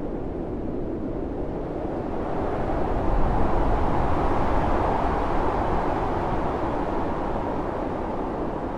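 Low rushing rumble of a snow avalanche's powder cloud pouring down a mountainside. It swells louder about three seconds in, then slowly eases off.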